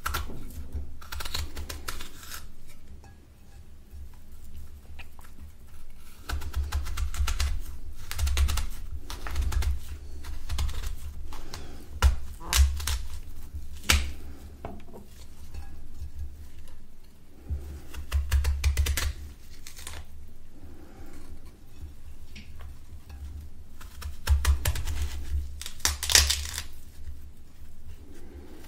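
Kitchen knife peeling and slicing chunks from a firm yellow fruit held in the hand: irregular crisp crunching cuts, some sharper snaps, over soft low handling thumps.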